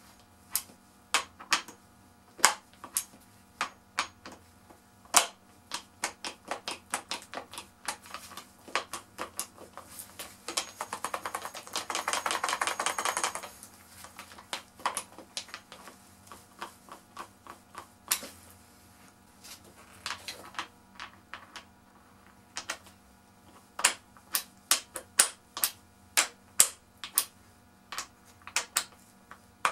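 Impact socket being pushed onto and pulled off the pin detent anvil of a DeWalt DCF899 impact wrench again and again: a string of sharp metal clicks and knocks as the socket seats and the detent pin catches and releases. About ten seconds in, a dense run of rapid clicking lasts about three seconds.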